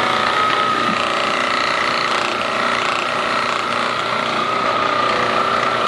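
Handheld electric massager running steadily with a high motor whine and a rattling buzz.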